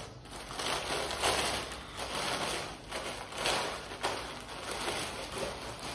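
Packaging rustling in the hands as it is unwrapped to take out a tote bag, in uneven swells.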